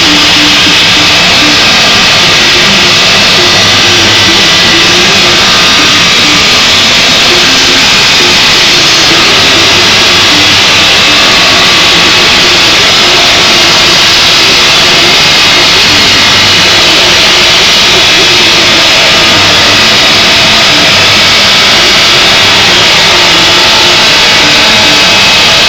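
Welding arc hissing and crackling steadily and loudly, without a break.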